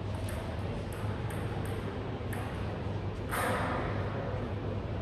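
Sports-hall room tone: a steady low hum with a few faint taps, and a brief rise of noise about three seconds in.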